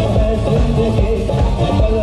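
Live band playing amplified music: electric bass, drums and keyboards, with a singer's voice over them.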